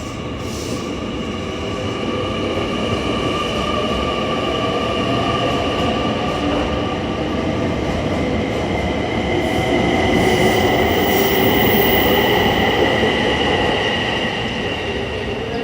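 An electric train running at a station, its wheels and running gear giving off high, steady squealing tones over a rumble. The sound grows louder, peaks about two-thirds of the way through, then eases slightly.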